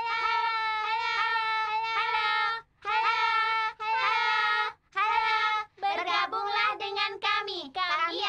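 A group of children singing a Christmas carol together, long held notes in short phrases with brief pauses between them, growing quicker and livelier about six seconds in.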